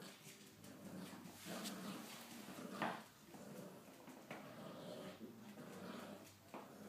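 Staffordshire bull terrier and miniature Australian shepherd mix puppy playing with a toy on a hardwood floor: scattered clicks and knocks of claws and toy on the boards, mixed with small vocal sounds from the puppy. The loudest, sharpest sound comes about three seconds in.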